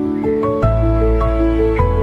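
Background music: gentle melodic notes over a sustained bass that comes in about half a second in.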